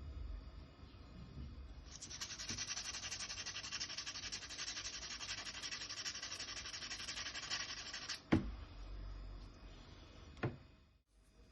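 Fine sandpaper rubbed by hand over a wooden kitchen-knife handle in quick, even back-and-forth strokes for about six seconds, as the handle is finer-sanded before oiling. Near the end there are two sharp knocks, a couple of seconds apart.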